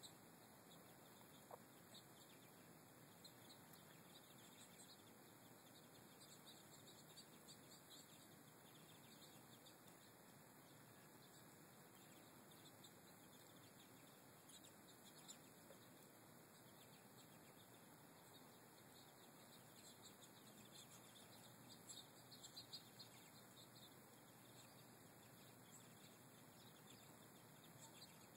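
Faint twittering of American goldfinches: scattered short, high chirps, busiest about twenty seconds in, over a steady background hiss.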